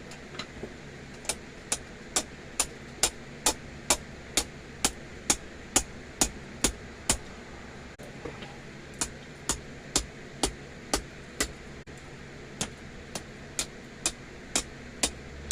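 Hand hammer striking a small piece of steel on an anvil face, sharp metallic blows about two a second in three runs with short pauses, bending the stock into a scroll. A steady low hum runs underneath.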